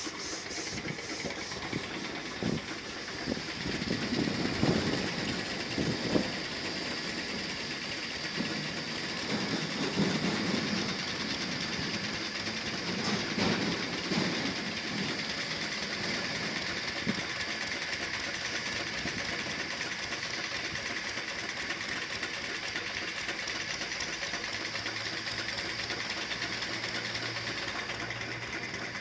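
Spray-painting compressor running steadily with a hiss and a chugging rattle, with a few knocks in the first several seconds.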